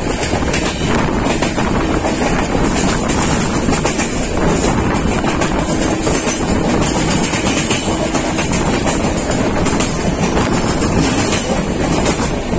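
Moving passenger train heard from inside at an open window: a steady, loud rumble of wheels on the rails mixed with rushing wind, with faint clicks of the wheels over the track.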